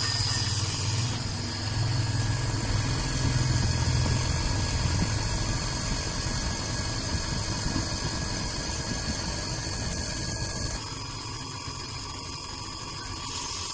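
Small 1/4 HP monoblock electric water pump running with a steady hum. Its sound changes and drops a little about eleven seconds in.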